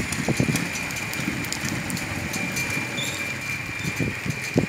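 Small long-tail boat engine idling with an uneven low chugging, and a steady high-pitched whine above it. A single knock comes near the end.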